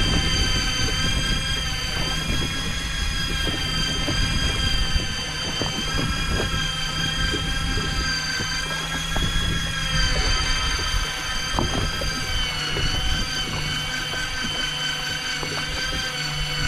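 Daiwa Seapower 800 electric fishing reel winding in line with a steady, high motor whine whose pitch wavers slightly, hauling a hooked fish up from deep water. A low rough noise runs underneath.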